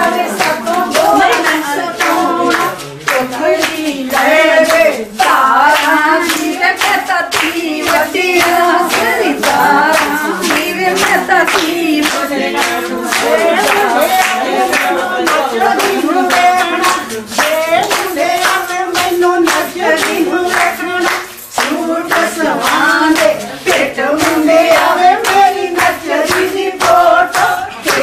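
Women singing Punjabi giddha boliyan as a group, over a steady beat of hand-clapping.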